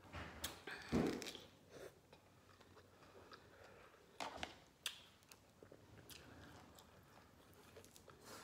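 A person chewing and biting into raw lemon wedges, close to the microphone: scattered short, wet mouth noises and clicks, the loudest about a second in.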